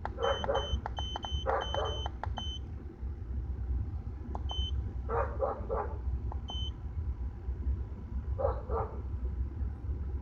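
Handheld OBD-II code reader beeping at each button press: a quick run of short high beeps in the first couple of seconds, then single beeps about halfway through and again a couple of seconds later. Under it the Integra's B18B1 engine is running with a steady low rumble. Short rough bursts of an unidentified noise come now and then.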